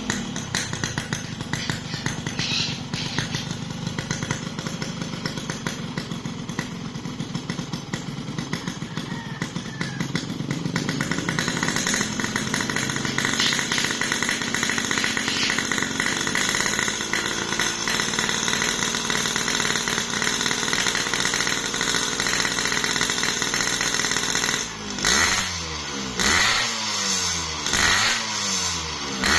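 Yamaha RX-King 135cc two-stroke single-cylinder motorcycle engine running steadily, then blipped several times near the end in quick rising and falling revs. The carburettor is set rich ('stel basah') for a 'ngorok', snoring exhaust note.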